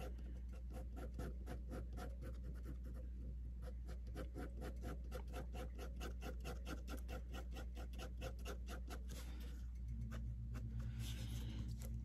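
Fine-tip ink pen scratching on paper in quick, short, even hatching strokes, about five a second, laying down shading texture to darken a drawing. The strokes stop about three quarters of the way through.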